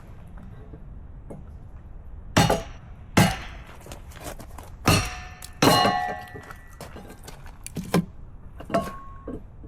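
Firewood being split by hand: about six sharp strikes at uneven intervals, several with a short ringing tone after the hit.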